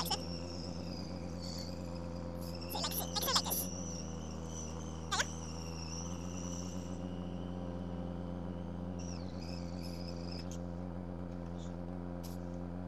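Motorcycle engine running at low speed with a steady low hum, and a thin high whistle over it that stops about seven seconds in and comes back briefly a couple of seconds later.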